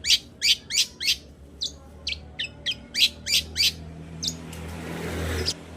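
Long-tailed shrike (cendet) calling, a fast series of about a dozen short, sharp notes over the first four seconds. Near the end a rising hiss builds and cuts off suddenly.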